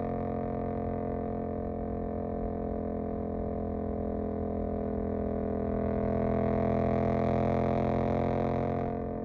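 Suzuki GSX-8S's parallel-twin engine through a Jeskap EVO aftermarket exhaust, running at a steady cruise. It swells louder from about six seconds in, then drops back near the end as the throttle eases.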